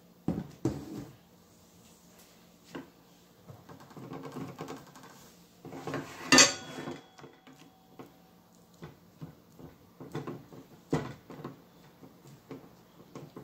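Silicone spatula stirring and scraping rice in a copper-coloured Gotham Steel non-stick frying pan, with irregular knocks against the pan. The loudest is a sharp clank with a brief ringing about six seconds in.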